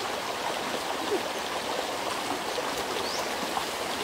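Steady, even rushing noise, with a faint short rising chirp about three seconds in.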